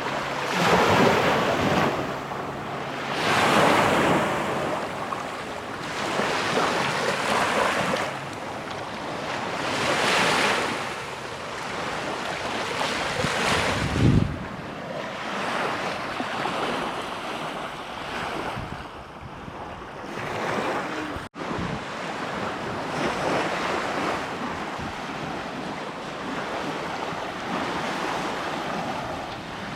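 Small waves washing up on a sandy beach, the surf swelling and fading every few seconds, with wind on the microphone. There is a brief low gust of wind on the microphone about fourteen seconds in.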